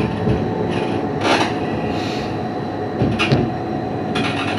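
CAF Urbos 3 tram running slowly on street track, heard from inside the driver's cab: a steady rumble of wheels on rail with a faint steady whine, and three short, higher-pitched rasping bursts as it takes a curve.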